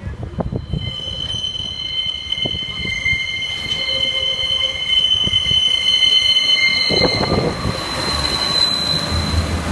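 Wheels of a passing Northern diesel multiple unit squealing on the rails in several steady high-pitched tones, over the rumble and clatter of the train.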